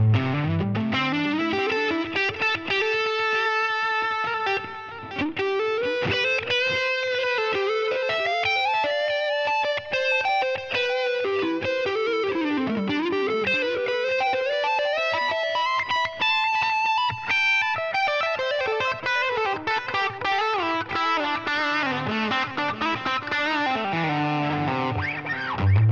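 Fender American Professional Stratocaster HH with Shawbucker humbucking pickups, played through a Line 6 Helix Floor amp-modelling processor: a single-note electric guitar lead solo, with string bends and slides between held notes and quicker runs.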